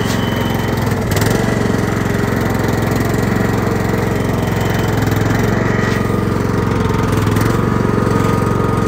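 Massey Ferguson ride-on lawnmower's engine running steadily as it drives through mud, with a faint thin whine coming in about six seconds in.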